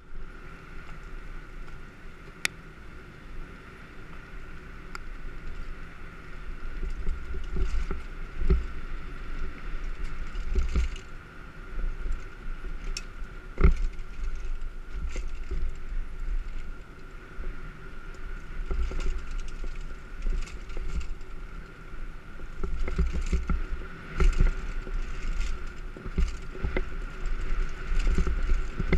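Specialized Demo 8 downhill mountain bike riding fast down a dirt singletrack: wind buffeting the on-bike microphone and uneven rumble over bumps, with sharp knocks and rattles from the bike, growing louder about seven seconds in. A faint steady whine runs underneath.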